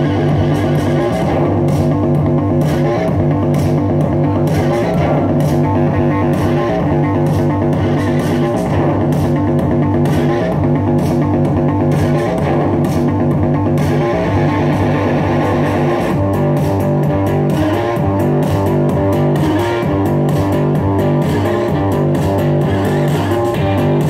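Rock music with electric guitar and bass guitar over a steady drum beat; the arrangement changes about two-thirds of the way through.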